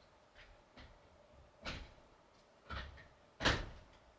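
Several short knocks and clunks of things being handled, three louder ones in the second half with fainter clicks between.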